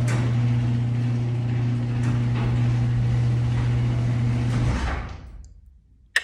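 Garage door opener motor running as the door closes on its newly replaced spring, a steady low hum with rattling from the door, a little noisy. The motor stops near the end, fading out over about half a second, and a single sharp click follows.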